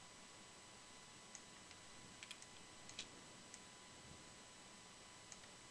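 Near silence with a handful of faint, scattered clicks from a computer mouse and keyboard, used to paste and move image layers.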